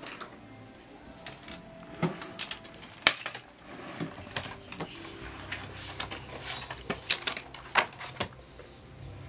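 Small objects being handled and set down on a hard dressing-table top: a string of sharp clicks, knocks and light clinks, the loudest about three seconds in.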